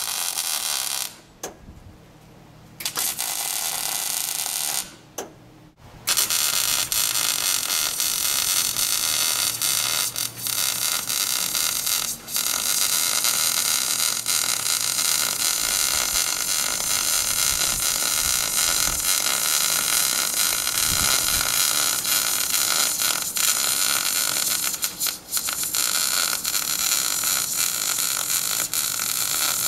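Wire-feed welder arc, laying a weld on a patch repair. It comes in several short bursts with gaps in the first six seconds, then runs steadily for the rest, with a few brief breaks.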